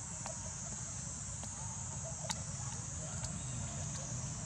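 Steady, high-pitched drone of an insect chorus over a low rumble, with a few sharp clicks, the loudest a little over two seconds in.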